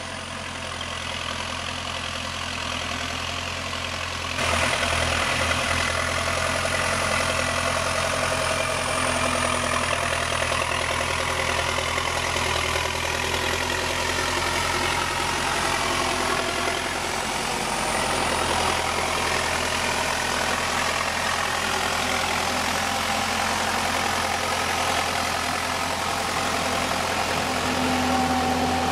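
MTZ 952.3 tractor's diesel engine running steadily while its big lugged tyres churn through deep mud and water. The sound gets suddenly louder about four seconds in.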